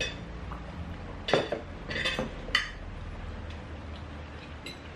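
Cutlery clinking against dishes during a meal: a handful of short, sharp clinks at uneven intervals.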